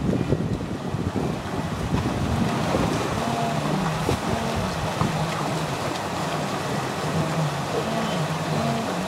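A large herd of wildebeest calling together, many overlapping low calls that come thick from a couple of seconds in, over wind buffeting the microphone.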